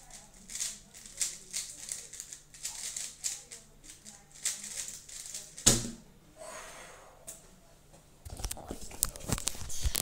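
Rapid clicking and clacking of a plastic 3x3 speed cube's layers being turned fast, stopping with one sharp slap of hands on the speed-cube timer's pads near the middle. About two seconds later comes irregular rubbing and knocking as the phone recording it is handled.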